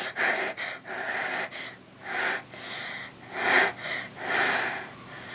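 A boy breathing hard in a series of sharp, noisy breaths and gasps, his reaction to the shock of his foot in ice-cold water.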